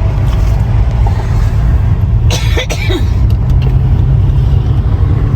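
A car driving, with a steady low road rumble and a brief sharp noise about two and a half seconds in.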